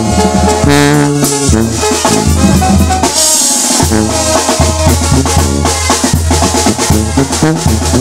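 Live Sinaloan banda playing: trumpets and trombones holding chords and then playing shorter notes, over a steady low bass line and drums, with a cymbal-like crash about three seconds in.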